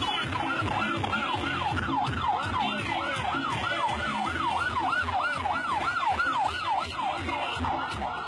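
Vehicle siren sounding a fast wail, its pitch sweeping up and down about three times a second without a break, over a low rumble.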